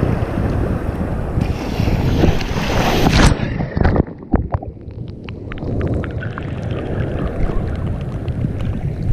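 Surf and wind buffeting the microphone, then a breaking wave crashes over the camera about three seconds in with a loud rush of water. The sound turns muffled, with scattered crackling clicks as the camera is washed under and the water runs off, and the open surf comes back over the next few seconds.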